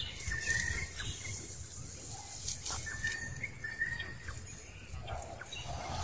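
Outdoor ambience with short, high, steady chirps, in two clusters, near the start and again about three seconds in, plus light scattered clicks and rustling in dry leaf litter.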